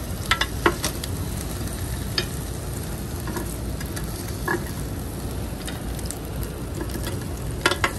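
Meat sizzling on a home grill: a steady frying hiss with a few sharp clicks or pops.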